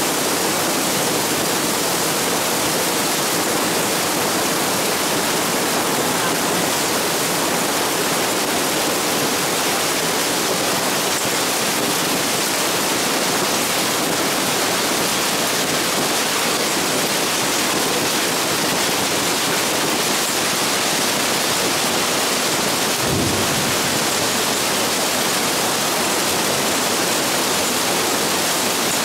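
Hailstorm: hailstones and heavy rain pelting down onto the ground and metal outdoor furniture, a loud, dense, steady hiss without let-up. A brief low thump a little over twenty seconds in.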